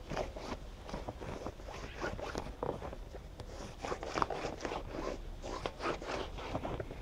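Schwalbe Magic Mary tubeless mountain-bike tyre being worked onto its rim by hand, the rubber bead and sidewall, slick with mounting fluid, rubbing and scraping against the rim in a quick run of short irregular strokes.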